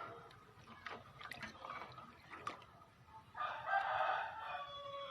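A long crowing bird call starting about three and a half seconds in, falling in pitch at its end, with a few faint clicks and knocks before it.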